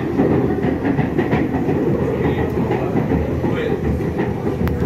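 Running noise heard inside a Hyundai Rotem electric multiple unit moving along the track: a steady low rumble of wheels on rail, with one sharp click near the end.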